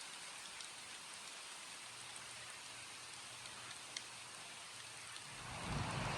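Steady rain falling, with a few separate drops ticking now and then. About five seconds in it swells into a louder rush with a low rumble underneath.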